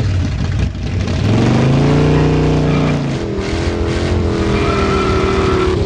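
Motorstar Xplorer Z200II motorcycle engine revved through an aftermarket Yushimura racing muffler on the stock elbow. It rises to a peak and drops back about three seconds in, then is revved and held up again, falling away near the end.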